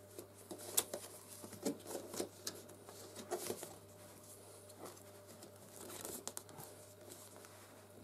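Corrugated plastic dryer vent hose crinkling and creaking in short, irregular rustles and clicks as it is stretched and worked by hand over the plastic outlet of a condenser box.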